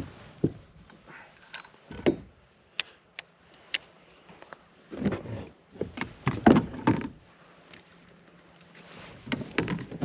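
Irregular knocks, clicks and rustling of gear being handled aboard a kayak, with a cluster of louder thumps and clatter from about five to seven seconds in.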